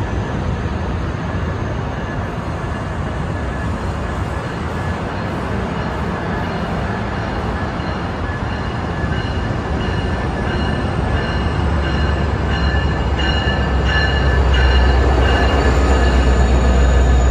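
Locomotive-hauled NJ Transit commuter train pulling into the station: a steady rumble that grows louder and deeper as the locomotive arrives, with a high squeal of brakes or wheels on the rails from about halfway through.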